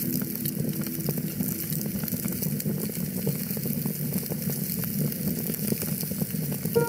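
Wood fire crackling in a fireplace: a steady hiss with many small sharp pops. A piano-like music note fades away at the start and another comes in near the end.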